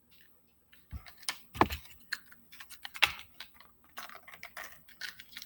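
Fishing-lure packaging being handled: irregular crinkles and sharp clicks starting about a second in.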